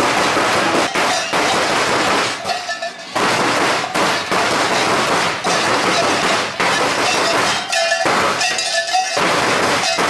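Loud, continuous metallic clanging and jangling from Perchten costumes, their bells and chains shaken as the figures move, easing off briefly about three seconds in and again near nine seconds.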